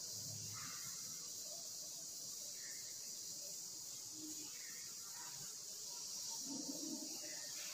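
Faint scratches and taps of chalk writing on a blackboard, a few short scattered strokes, over a steady high-pitched hiss.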